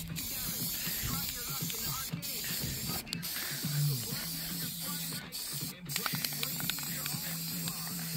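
Aerosol can of black spray paint hissing in long bursts with several short breaks, spraying onto steel brackets.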